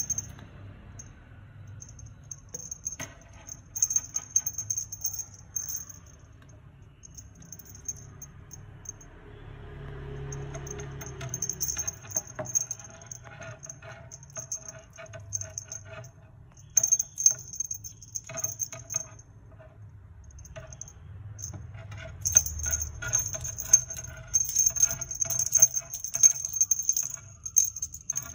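Small bells on a feather wand cat toy jingling in irregular bursts as the toy is swished and batted, with short pauses in between.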